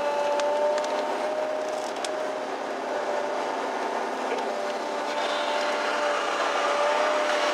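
Link-Belt 210 LX excavator heard from inside its cab, its diesel engine and hydraulics running steadily under load with a steady whine as the log grapple swings and holds a log.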